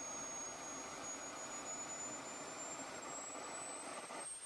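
Miniature kerosene-fuelled turbojet engine running: a thin, high whine climbing slowly in pitch over a steady rushing noise as the turbine spools up, just above idle.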